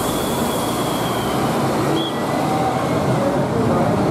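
Volvo B11R double-decker coach's 430 hp diesel engine running steadily as the bus pulls away, with faint thin whines over it.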